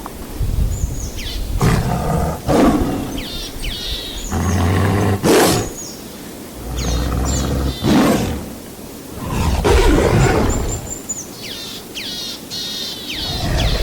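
Big cats roaring again and again, a loud rough roar every couple of seconds, with birds chirping in quick falling whistles between the roars.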